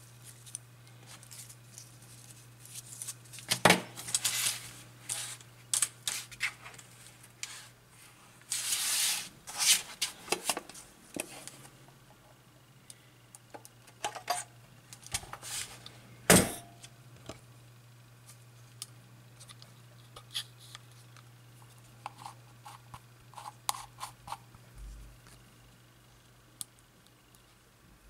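Hands handling a Kiev-6C medium-format SLR camera body and its accessories: scattered clicks and knocks with bouts of rustling, one sharp knock about halfway through, and a quick run of small clicks later on. A low steady hum lies underneath.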